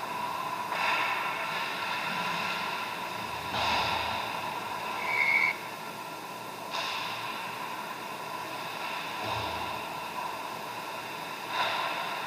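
Ice-rink sound during a hockey game: a steady hum of several tones, with a few short rushes of scraping noise from skates, sticks and puck on the ice, about four over the stretch.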